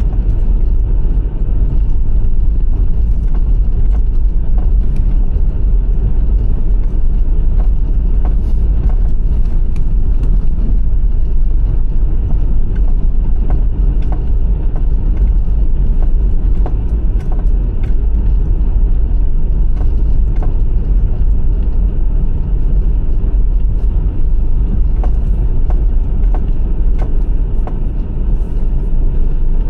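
Steady low road and engine rumble inside a moving car's cabin, with faint scattered ticks over it.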